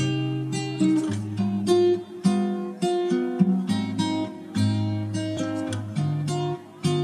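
Background music: acoustic guitar strumming and picking chords, a new chord about every half second.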